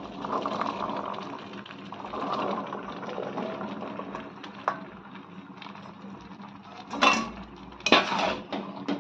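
Boiled chickpeas being tipped into thick frying masala in a cooking pan and stirred in, with a soft sizzling and light clicking; it gets louder twice near the end as the pan is worked.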